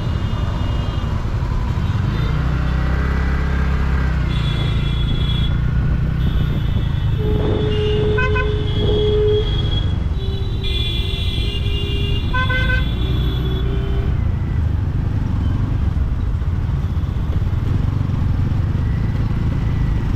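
Heavy city traffic heard from a moving scooter: a steady low rumble, with other vehicles' horns honking several times between about four and fourteen seconds in.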